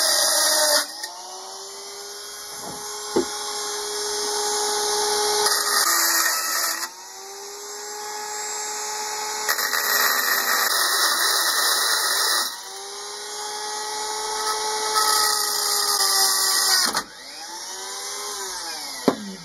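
Cordless Dremel-type rotary tool with a small grinding stone cutting through the metal axles of a die-cast toy car held in a vise: a high motor whine with a hissing grind, in several passes that each build in loudness, briefly dip, and start again. Near the end the tool is switched off and its whine falls away as it spins down.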